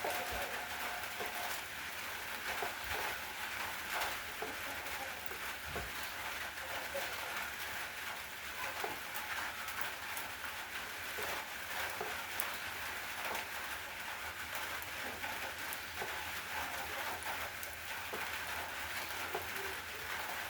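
Steady rain falling, with many separate drops ticking on a surface over an even hiss.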